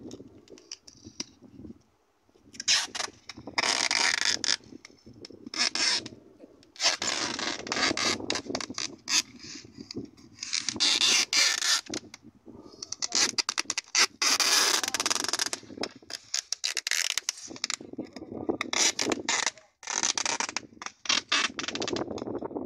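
Packing tape being pulled off its roll and run over a polystyrene cooler box, in repeated ripping strips that last from half a second to about two seconds each.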